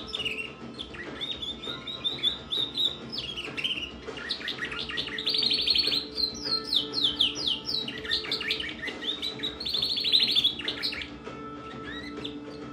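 Female domestic canary singing a varied song of chirps and rapid trills, with fast rolling runs of repeated notes about five seconds in and again about ten seconds in, then tapering off near the end.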